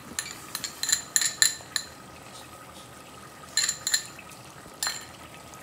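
A metal spoon clinking and scraping against a glass bowl and a steel pot as yogurt is scooped into the masala. There is a run of quick clinks in the first couple of seconds, a few more about three and a half seconds in, and one more near the end.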